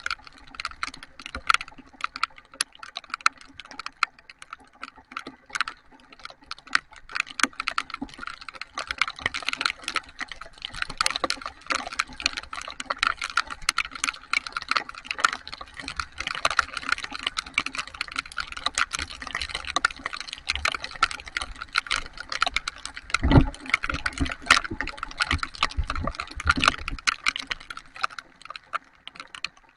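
Heavy rain: a dense, irregular patter of drops striking close to the microphone, with a brief low thump about two-thirds of the way through.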